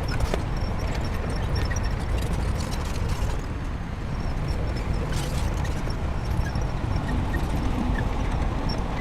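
Shantui crawler bulldozer's diesel engine running steadily under load, with the clanking of its steel tracks and blade coming through a few times.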